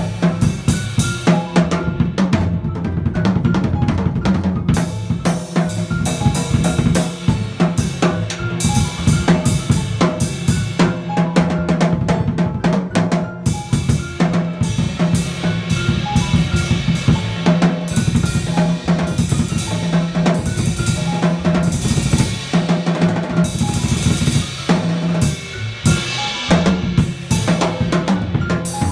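Jazz drum kit played with sticks, busy snare, tom, bass drum and cymbal strokes filling the bar, with upright bass and piano sounding softer underneath.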